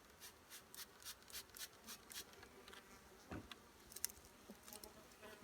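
Hand spray bottle misting sugar water onto a package of honeybees in quick squirts, about four a second for the first two seconds and a few more later. The bees give a faint buzz underneath.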